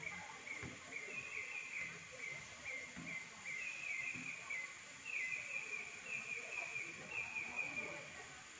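High-pitched animal chirping, short rapid notes repeated in runs over and over, stepping between two close pitches, in a forest setting.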